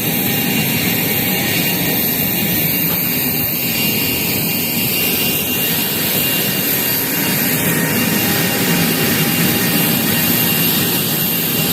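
Jet aircraft engine running steadily on the airport apron: a loud, even rush with a constant high whine over it.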